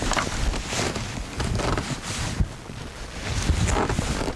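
Wind buffeting the microphone in gusts, a heavy low rumble that eases briefly mid-way, with a few short clicks.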